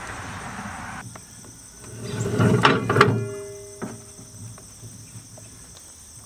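Rotary mower gearbox and PTO driveline being turned by hand after being refilled with gear oil. A loud metallic rattle and clunks come about two to three seconds in, with brief metal ringing, then a few scattered clicks.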